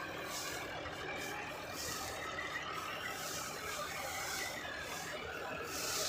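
Self-propelled combine harvester running steadily as it cuts ripe rice: an even mechanical drone with a few steady tones in it.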